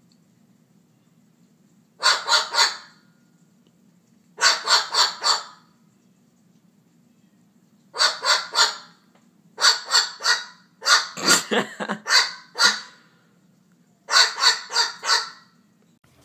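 White cockatoo calling in loud, harsh bursts, each a quick run of three to five squawks, about six bursts repeated every couple of seconds.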